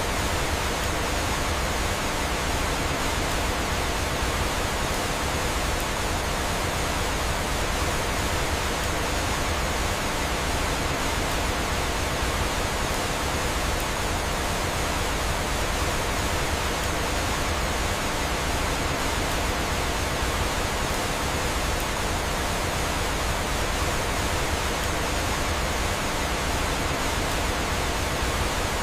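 Steady rushing of flowing water, like a waterfall: an even, unbroken hiss with no distinct crackles or splashes.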